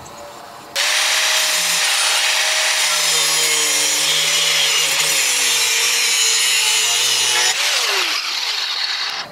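Angle grinder started about a second in and grinding steel steadily, trimming a steel latch piece down; near the end it is switched off and its motor winds down in a falling whine.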